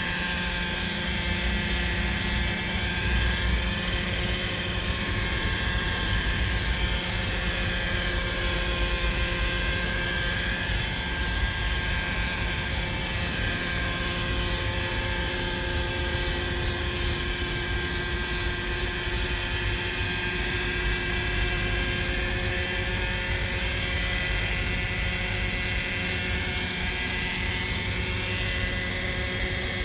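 Hirobo Sceadu electric RC helicopter running with its rotors spinning while it floats on the water on its floats. It makes a steady whine whose higher tones waver slowly up and down, over a low rumble.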